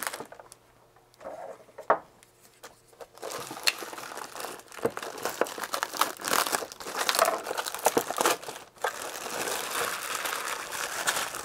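Clear plastic wrapping crinkling and rustling as hands handle it and work it off a soldering station. The first few seconds are quiet apart from a few light clicks; the crinkling starts about three seconds in and runs steadily, with a brief pause near the end.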